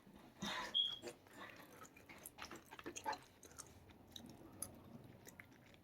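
A person chewing food close to the microphone, with small wet mouth clicks and smacks; a brief louder rustle about half a second in and a short high ping just after it.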